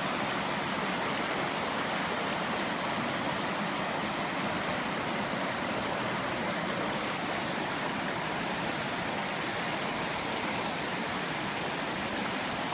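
Fast-flowing muddy floodwater from a flash flood rushing along a street, churning around a tree trunk and a pole: a steady, unbroken rush of water.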